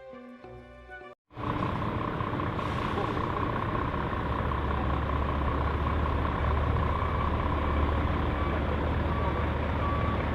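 Truck engine running with a deep rumble and a steady high-pitched tone over it, starting suddenly about a second in and cutting off abruptly at the end.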